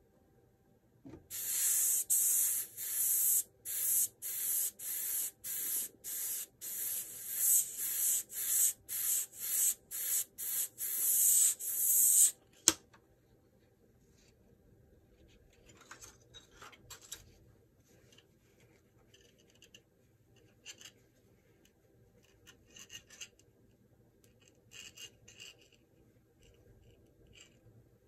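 Airbrush spraying paint in quick hissing pulses, about two a second, as the trigger is pressed and released for some eleven seconds, then stopping with a click. Faint rustling follows.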